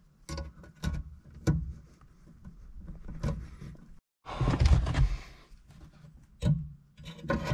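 Plastic trunk trim and push-in fasteners being worked loose by hand: a series of sharp knocks and clicks, with a longer scraping rustle of plastic and carpet about four to five seconds in.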